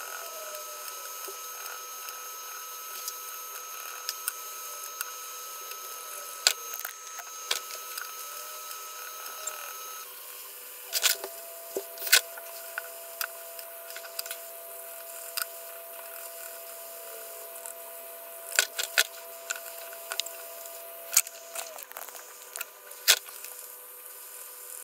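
Colored pencil tapping and scratching on paper in scattered sharp clicks, over a steady hiss and faint electrical whine whose pitch shifts about ten seconds in.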